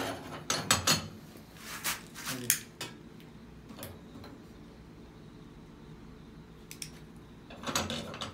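Metal clinks and knocks from the grate and burner cap of a gas stove being lifted and reset, a cluster of them in the first three seconds and another near the end, with a quiet stretch between. The burner is being fiddled with because it will not ignite.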